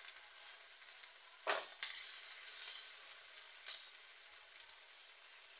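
Chicken pieces sizzling in a nonstick wok, stirred with a spatula; the spatula knocks sharply against the pan about a second and a half in, with a couple of lighter knocks after.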